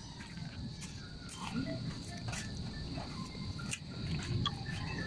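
A cat chewing and licking rice from a plastic tub, heard as scattered soft clicks and smacks, over a steady high-pitched insect drone.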